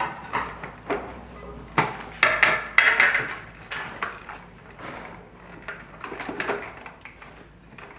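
Scattered clicks and knocks of kitchen work: a knife on a cutting board and the plastic bowl and lid of a food processor being handled, with the loudest knocks around two to three seconds in.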